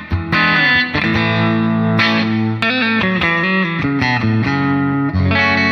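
Epiphone Prophecy SG electric guitar played clean on its neck pickup: a run of picked chords and single notes, the last chord struck near the end and left ringing.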